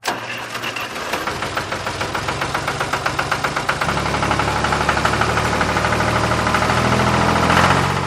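A small engine-like motor running with a fast, even knocking beat, about ten knocks a second, over a low hum that steps up in pitch about halfway through and grows a little louder near the end.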